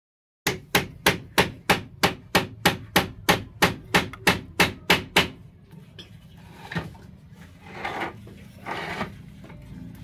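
A rapid run of evenly spaced sharp knocks, about three a second for some five seconds, then fainter scattered knocks and clatter.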